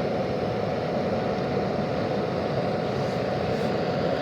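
Small charcoal-fired foundry furnace running on full blast with forced air: a steady, unbroken roar of the air blast and burning charcoal.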